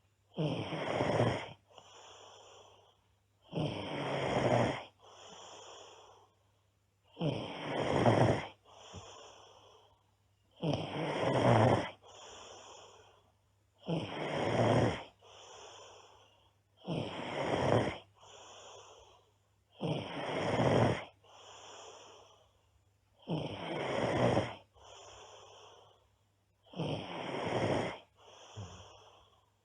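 A girl snoring loudly and steadily. A loud, rough snore comes about every three seconds, nine times over, and each is followed by a softer, breathy exhale.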